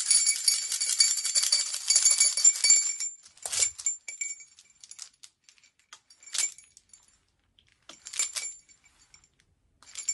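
Asson, the Vodou priest's beaded gourd rattle, shaken steadily for about three seconds with a jingling, clinking ring, then given a few short single shakes a couple of seconds apart.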